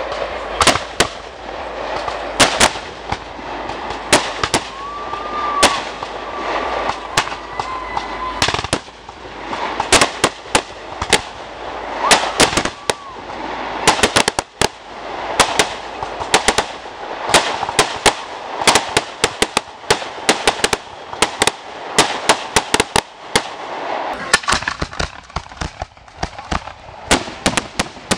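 Aerial fireworks launching and bursting overhead: a long run of sharp bangs and crackles in rapid, irregular succession, thickest in the middle stretch.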